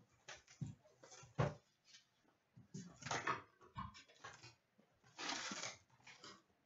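A cardboard box of trading card packs being handled and opened by hand: scattered soft taps and rustles, with a longer rustle of cardboard and foil packs about five seconds in as the packs come out of the box.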